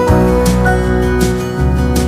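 Gentle background music led by plucked acoustic guitar over a steady bass line.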